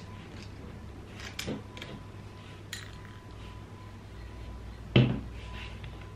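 Light clicks and clinks of a small screwdriver and screws on the plastic underside of a Lenovo G400 laptop as the cover screws are taken out, with a screw going into a small glass bowl. A heavier knock about five seconds in is the loudest sound.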